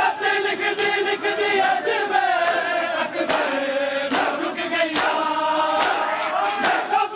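Men's voices chanting a noha together over a large crowd, with the slap of many hands striking bare chests in unison (matam) keeping a steady beat of about one strike a second.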